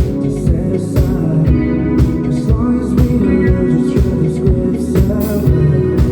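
A live rock band playing loudly: guitars and bass over a steady drum beat, with a singing voice coming in briefly partway through.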